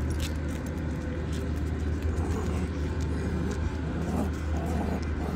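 Steady low rumble of road traffic, with faint clicks on top.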